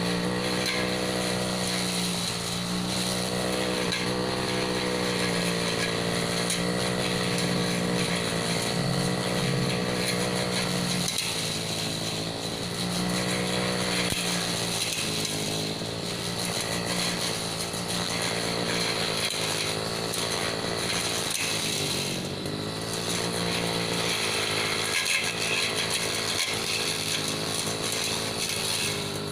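Petrol brush cutter with a steel blade running hard while cutting a hedge, its engine pitch wavering up and down as the blade bites, with a couple of brief dips in speed.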